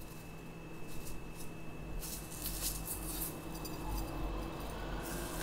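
Black sesame seeds shaken from a plastic shaker bottle into a metal spoon, a soft hissing patter in short bursts.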